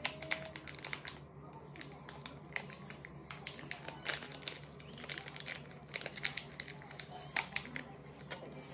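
Crinkling and crackling of a plastic instant-drink stick sachet being handled and worked at to tear it open, with many small irregular crackles.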